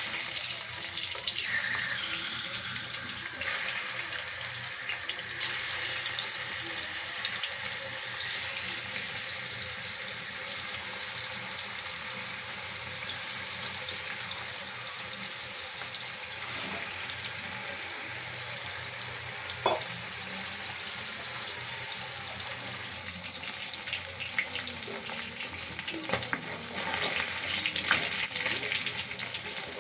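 Food frying in hot oil in a pan: a steady hiss of sizzling with a few faint clicks.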